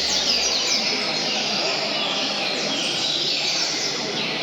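Double-collared seedeaters singing over one another, a dense run of fast downward-sweeping high whistled notes, over a steady low background murmur.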